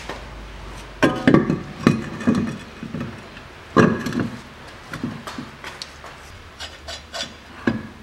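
Car wheel being hung on the front hub and fitted: a series of knocks and clunks, some with a short metallic ring, the loudest about a second in and near four seconds, then lighter clicks.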